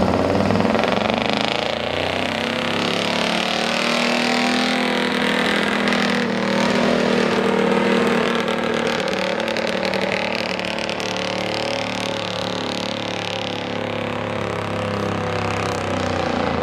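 Gasoline V8 of a stock Chevrolet squarebody pickup working hard under load as it drags a weight-transfer pulling sled, the engine note rising and falling in pitch throughout.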